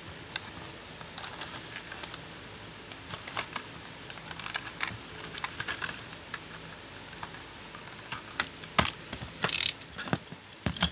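Hands opening a cardboard-and-plastic blister pack: scattered clicks and crackles of the plastic blister and card, with a brief louder rustle about nine seconds in.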